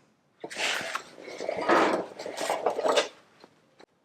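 Thin sheet-steel patch panel being handled and offered up: three rough metallic scraping and clattering bursts, then two small clicks near the end.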